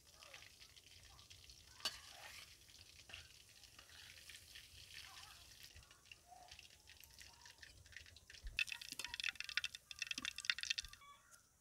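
Hot oil sizzling and crackling in an iron karahi as deep-fried chicken pakoras are lifted out with a metal ladle, with a few light clicks and scrapes of the ladle. The crackling grows louder and denser about eight and a half seconds in.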